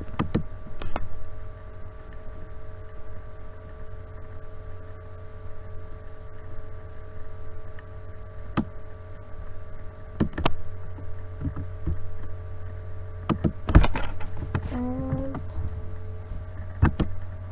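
Steady electrical mains hum on the recording, with scattered single clicks of a computer keyboard and mouse as text is edited, one of them louder about 14 s in.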